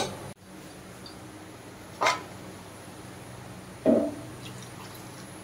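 Two short knocks about two seconds apart, the first sharper and brighter, the second duller, over a low steady hum.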